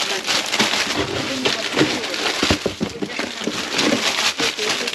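Crinkling plastic food packaging and cardboard being handled and shifted about, with scattered knocks as packs are set down.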